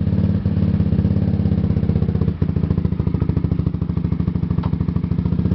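Motorcycle engine running with a steady, even pulse, with a brief dip about two and a half seconds in.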